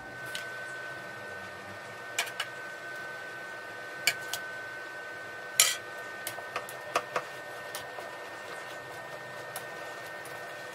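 A cooking utensil clinking and knocking against a pan of meat pie filling: about a dozen short, irregular knocks, the loudest about halfway through, over a steady hum.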